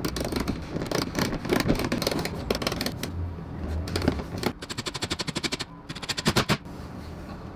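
Screws being driven into the plastic front bumper at the wheel-arch edge: rattling clicks and knocks from the tool and fastener, with a fast, even run of clicks, about a dozen a second, a little past halfway.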